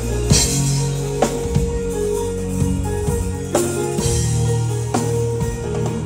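A live band playing: drum kit with several cymbal crashes over held keyboard chords and low sustained bass notes.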